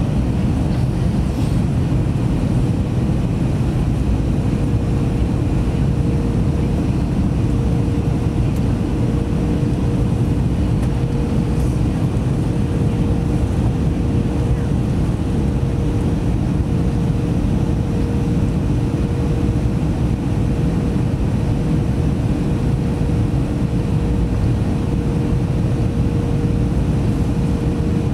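Cabin noise inside an Airbus A321neo on approach: a steady roar of air rushing past the fuselage mixed with its Pratt & Whitney geared turbofan engines, with a faint steady hum running through it.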